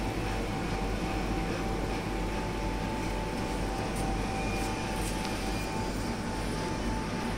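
Powered-on stainless-steel food holding cabinet running: a steady machine hum and whir with a thin, even tone above it and a few faint ticks partway through.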